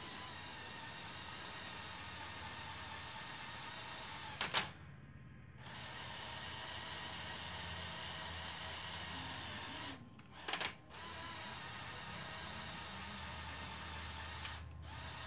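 Small electric motor and plastic gears of a LEGO Technic RC bus running with a steady high whine, stopping three times. Two of the stops, about four and a half and ten and a half seconds in, come with loud sharp clicks.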